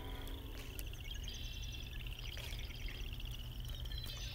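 Outdoor wildlife ambience: a steady, high-pitched, rapidly pulsed trill with scattered short chirps over a low rumble.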